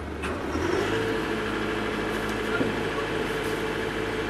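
An engine idling nearby with a steady, constant hum.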